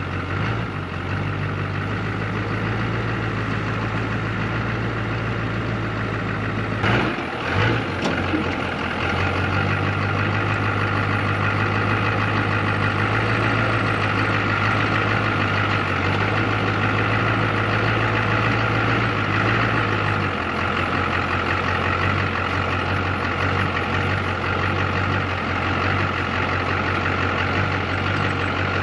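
Stihl 661 two-stroke chainsaw running steadily under load, ripping lengthwise through a log on an Alaska chainsaw mill. A few sharp knocks come about seven to eight seconds in, and the low engine note shifts about twenty seconds in.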